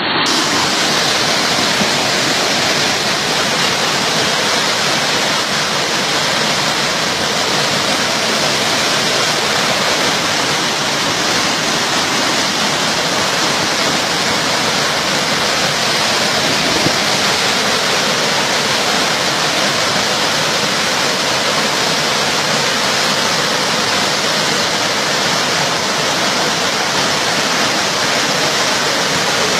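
Floodwater rushing: a loud, steady, unbroken sound of fast-flowing water.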